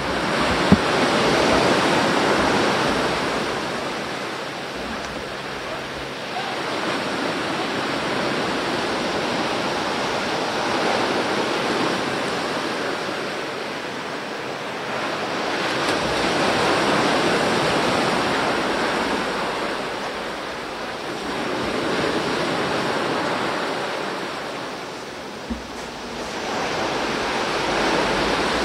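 Sea waves breaking on a beach: the rush of surf swells and fades every five or six seconds. Two brief knocks stand out, one about a second in and one near the end.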